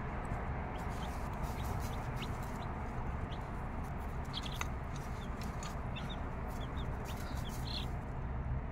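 Six-day-old chicks peeping, short high peeps scattered through, with a mother hen clucking, over a steady low background hiss.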